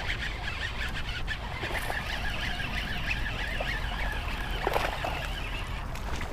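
Baitcasting reel being cranked steadily, its gears giving a fast, fine clicking whir as a hooked bass is reeled in. The cranking stops about six seconds in.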